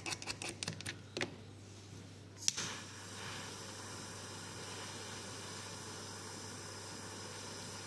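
Handheld butane torch clicking alight about two and a half seconds in, then a steady hissing flame as a metal wax spatula is heated in it. A few light taps and clicks of the tools being handled come before it.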